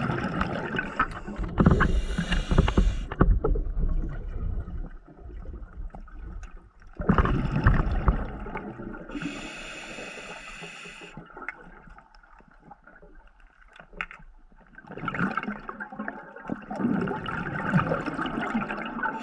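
Scuba diver breathing underwater through a regulator: a few breath cycles, with bursts of bubbling exhaled bubbles and a hissing inhale partway through.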